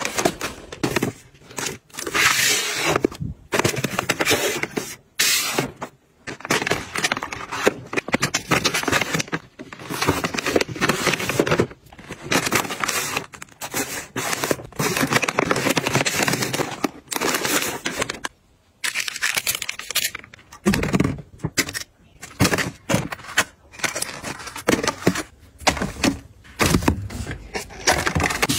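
Plastic foil packaging bags crinkling and rustling as they are handled, with scrapes against cardboard and shelving, in short bursts broken by abrupt cuts.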